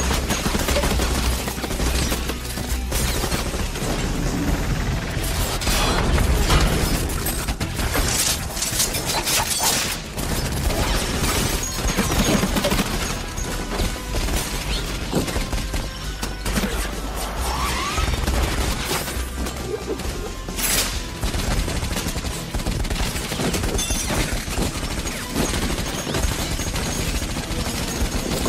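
Film action-scene soundtrack: rapid, dense gunfire from handguns and automatic rifles over dramatic score music.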